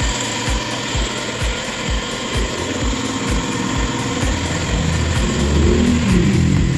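Background dance music with a steady kick-drum beat, a little over two beats a second. A deeper droning sound with a wavering pitch swells beneath it in the second half.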